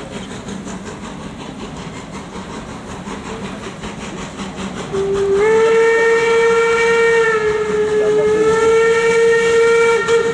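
Steam locomotive moving slowly, with steam hissing from its open cylinder drain cocks. About halfway through, its steam whistle sounds one long blast of about five seconds, its pitch dipping slightly in the middle before it cuts off.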